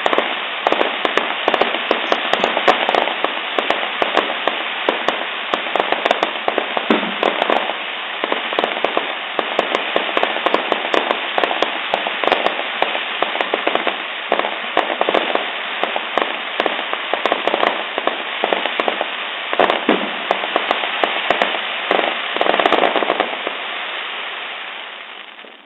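Fireworks crackling: a dense, continuous rattle of many rapid sharp cracks, dying away near the end.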